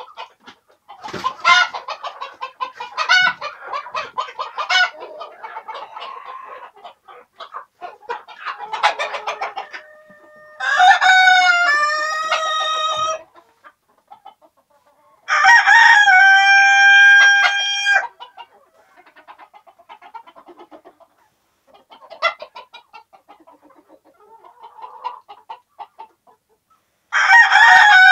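Roosters crowing three times, in long drawn-out crows: two close together near the middle and one near the end. Hens cluck and cackle before and between the crows.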